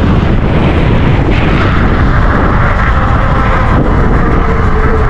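Heavy, steady wind buffeting on the microphone from riding a bicycle fast downhill.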